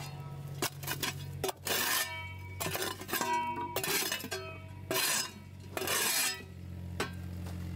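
Steel spade blade stabbing and scraping into stony ground, with sharp metallic clinks that ring briefly as it strikes stone or brick, and gritty scrapes as it is pushed in, loudest about two seconds in and twice more near the end.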